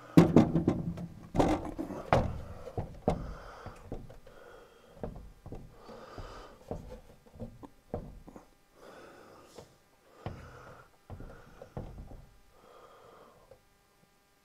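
Hands working at a metal breaker box: sharp clicks and knocks, loudest in the first two seconds, then softer taps and handling noise, with short breaths through the nose every second or two.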